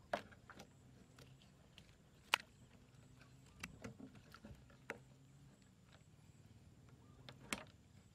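Scattered sharp clicks and taps from hands handling a large plastic water bottle joined to a ribbed plastic hose, the loudest about two seconds in and near the end.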